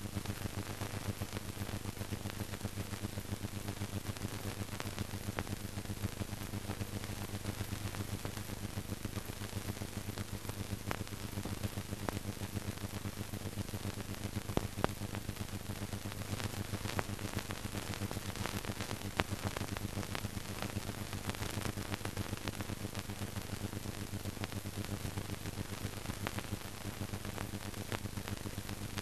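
Steady hiss and low hum of an old film soundtrack, with scattered faint crackles and clicks.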